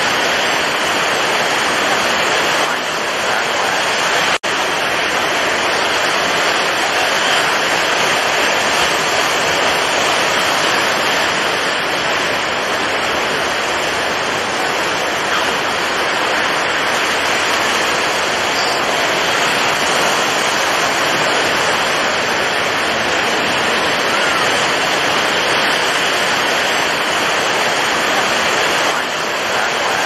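Rough, storm-driven sea: a steady, dense rush of breaking waves and surf, with a momentary break about four seconds in.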